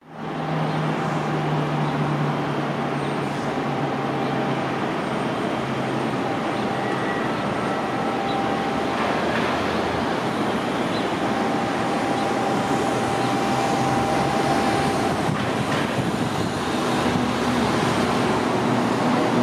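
Beech C-99 Airliner's twin turboprop engines at takeoff power during the takeoff roll: a steady noise with a low hum, getting a little louder near the end as the aircraft lifts off.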